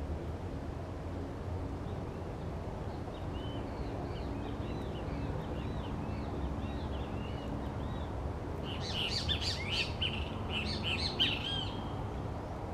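Birds calling: a run of short arched chirps, then a louder burst of fast, harsh chattering calls about two-thirds of the way in, over a steady low hum.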